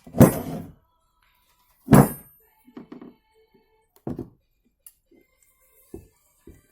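Heavy knocks of metal on metal, two loud ones with a short ring, about two seconds apart, followed by several lighter knocks, as the steering knuckle with its new hub bearing and the tools are handled on a workbench.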